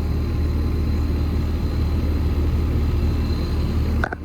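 American Standard Gold Series central air conditioner condenser running, its Alliance scroll compressor and fan giving a steady low hum under a rush of fan air. The sound breaks off briefly near the end.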